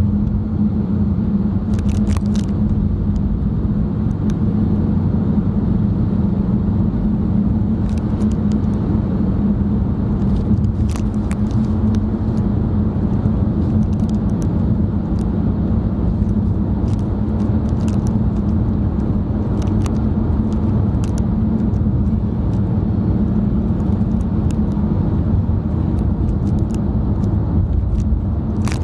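Steady road noise inside a moving car's cabin: engine and tyre rumble, even throughout, with a few faint scattered ticks.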